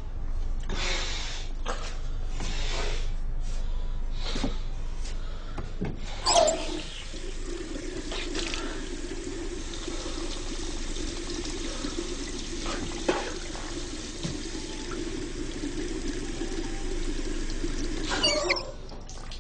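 A bathroom sink tap is turned on with a brief squeak about six seconds in and runs steadily into the basin. It is shut off, squeaking again, near the end. Before it come several short splashes and rustles.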